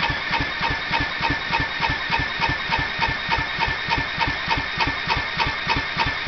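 Electric drill whining as it cranks the Kawasaki FC150V single-cylinder four-stroke engine of a John Deere JX85 mower, with a steady, even chug of about six compression strokes a second. The engine turns over without catching, which the owner takes for a worn-out carburetor.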